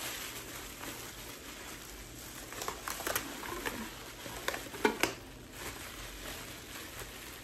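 Plastic bubble wrap crinkling and crackling as a wrapped item is unwrapped by hand, with clusters of sharp crackles about two and a half seconds and about five seconds in.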